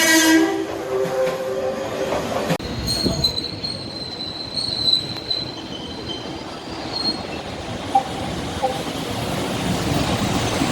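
A train horn's pitched tone dies away in the first couple of seconds. After an abrupt change, a passing JR West train runs with a steady, high-pitched wheel squeal from about three to seven seconds over the rolling noise of its wheels.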